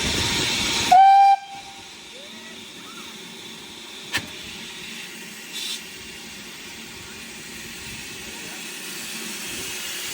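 BR Standard Class 4 steam locomotive 75069 working hard, then a short, loud blast on its steam whistle about a second in. After the blast the sound drops suddenly to a quieter steady hiss, with a single sharp click near the middle.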